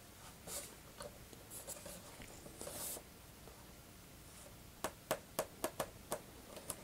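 Hands working the foam upper wing of a model biplane, pressing it down to seat its pins: faint rubbing and rustling, then a quick run of several light clicks about five seconds in.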